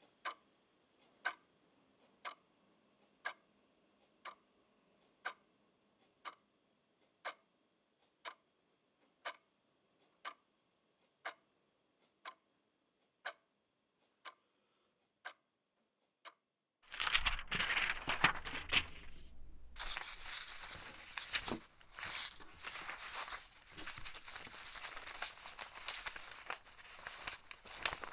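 A clock ticking steadily, about once a second, for the first sixteen seconds. About seventeen seconds in, the ticking gives way to a much louder stretch of rustling, crinkling and crunching.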